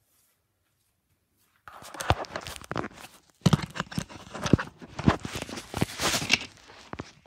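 Handling noise close to the microphone: rustling, scuffing and sharp knocks as the recording device is picked up and moved, starting about a second and a half in and briefly dipping around three seconds in.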